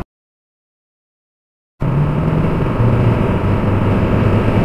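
Dead silence for almost two seconds, then the steady hum and road noise of a car driving at highway speed, heard from inside the cabin.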